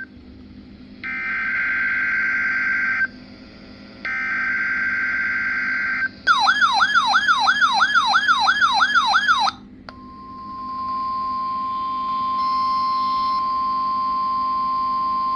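Emergency Alert System tones from a NOAA Weather Radio broadcast: two buzzy digital SAME header bursts about two seconds each, then a warbling alarm that sweeps up and down about three times a second. From about ten seconds in comes the steady 1050 Hz weather radio alert tone, announcing a tornado watch.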